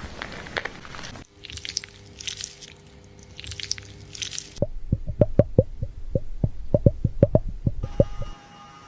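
Fingers scrubbing through lathered hair, a crunchy, squishing scratch in short clusters. About halfway through it gives way to a quick run of soft thumps, about five a second.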